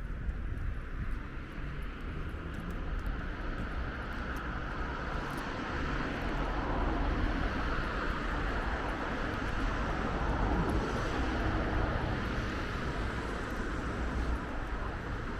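Outdoor city ambience: a steady rush of engine noise from passing traffic, which swells through the middle and eases off near the end.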